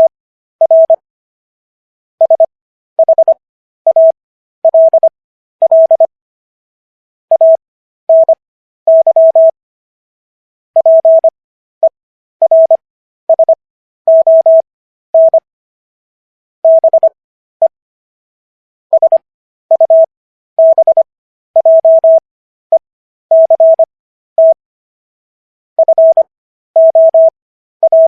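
Morse code: a single steady mid-pitched beep keyed on and off in short dots and longer dashes, characters sent quickly with extra-long gaps between them (Farnsworth spacing), spelling out the Fifth Amendment text at 15 words per minute.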